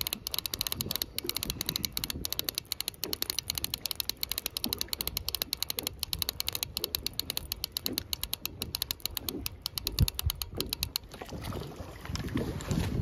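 Fishing reel cranked steadily against a bent rod with a fish on, giving a rapid, even train of ratchet clicks that stops about two seconds before the end. A single knock comes about ten seconds in.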